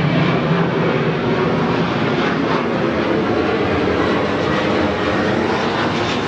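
A steady, loud engine drone with no break.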